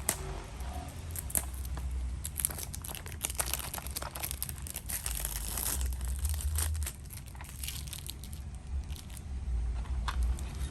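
Packaging of a cassette tape crinkling and tearing as it is unwrapped by hand, in dense bursts of crackling, heaviest about two to six seconds in.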